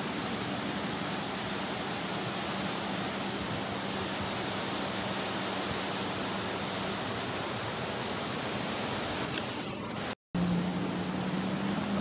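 Steady outdoor hiss with a faint, even engine hum underneath. About ten seconds in it cuts to the louder, steady running of Sea-Doo personal watercraft engines on the water.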